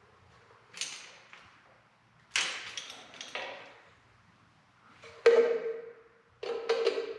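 Metal hand tools clinking and knocking against metal parts, a few separate strikes and then a quick series near the end, some leaving a short metallic ring, as a wiring connection on the tractor's ammeter is tightened.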